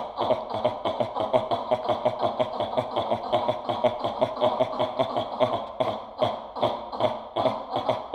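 A man's voice performing experimental vocal music from a printed score: a rapid, even staccato of short voiced pulses, about five a second, held steady throughout.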